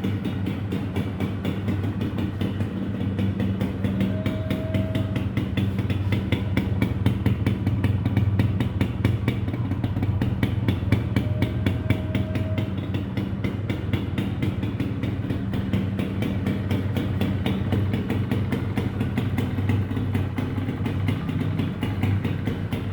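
Yamaha Royale motorcycle's single-cylinder two-stroke engine running steadily at idle, swelling a little in the middle, with two brief faint whistle-like tones over it.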